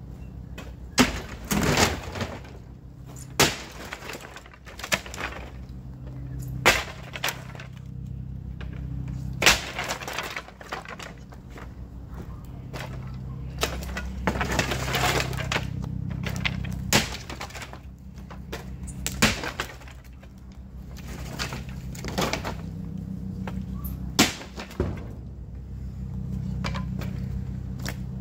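Sledgehammer blows breaking apart a wooden doghouse: sharp cracks and splintering of wood, one every one to three seconds, with a longer stretch of crackling breakage about halfway through.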